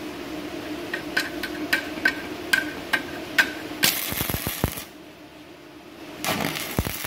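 Stick-welding arc from an MMA 200 G-JB inverter welder running at 200 A with a 4 mm electrode and hot start at maximum. A run of sharp snaps comes as the arc is struck, then the arc burns with a loud hissing crackle for about a second, and a second burst of crackle follows near the end. A steady low hum runs underneath.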